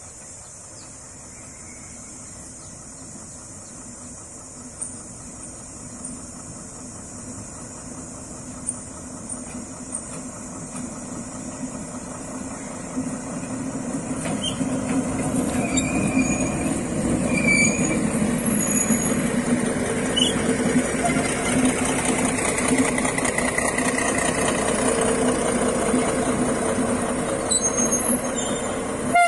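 D20E diesel-electric locomotive running light, approaching and passing close by. Its engine hum grows steadily louder through the first half and stays loud, with a few sharp clicks and short metallic squeals from the running gear as it goes by.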